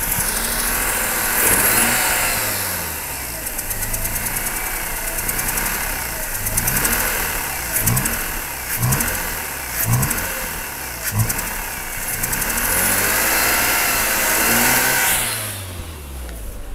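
2004 Mazda RX-8's twin-rotor rotary engine being revved up and down by hand on the throttle, running rough with a pulsating air-suction noise that grows louder with throttle, the sign of a broken rotor side seal. A few sharp knocks sound about halfway through.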